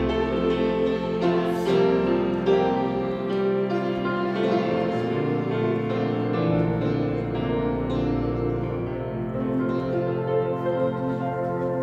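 Grand piano playing a slow hymn tune in held chords over sustained low bass notes.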